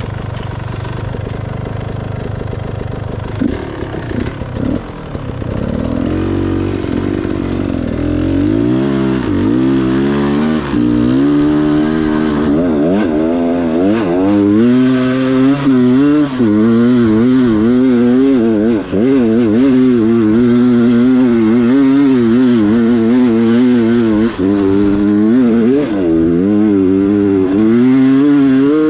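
Beta enduro dirt bike's engine running steadily at first, then from about six seconds in revving up and down over and over as the bike is ridden, the pitch rising and falling every second or so.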